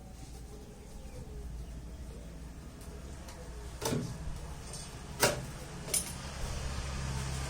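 Three sharp knocks about four, five and six seconds in, the middle one the loudest, over a steady low machine hum that grows a little louder near the end.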